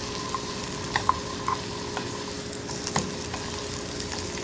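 Kabocha squash slices sizzling steadily in butter in a nonstick skillet, with a few light clicks of tongs against the pan as the slices are turned.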